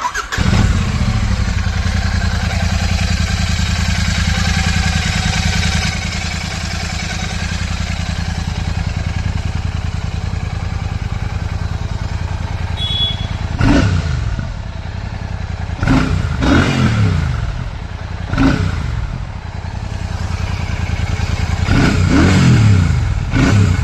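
Royal Enfield Classic 650's 648 cc parallel-twin engine on its stock exhaust, starting up right at the beginning and settling into a steady idle. In the second half it is blipped several times with quick revs that rise and fall, then given a longer rev near the end.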